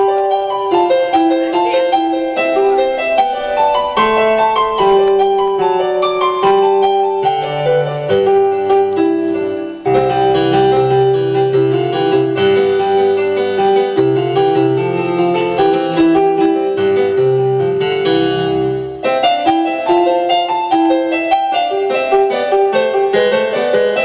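Instrumental piano music: a melody played over changing low bass notes.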